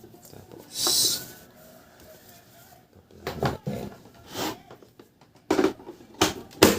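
Handling noises as a power cord is fitted to an LED strobe light: a short hiss about a second in, then scattered clicks and knocks.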